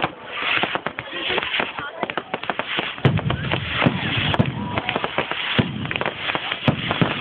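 Aerial fireworks bursting in a dense run of crackling pops and bangs, with heavier, deeper bangs from about three seconds in.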